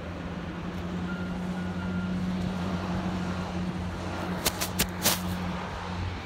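Truck engine running steadily, a low hum that stops shortly before the end, with four sharp clicks about four and a half to five seconds in.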